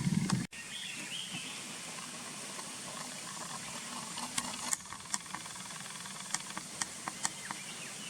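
Steady outdoor hiss with several sharp short clicks in the second half and faint high chirps. A low rumble at the start cuts off abruptly about half a second in.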